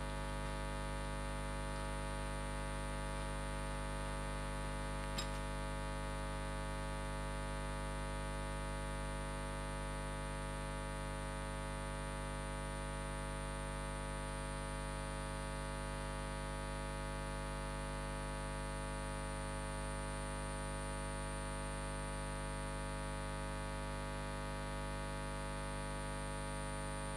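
Steady electrical mains hum with hiss, an unchanging buzz of many tones, with one faint click about five seconds in.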